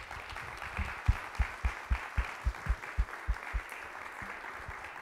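Audience applauding, with a run of louder close-by claps about four a second that stops a little past halfway.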